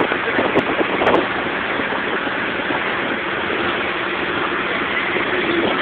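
Car driving at speed, heard from inside the cabin: a steady rush of engine, road and wind noise.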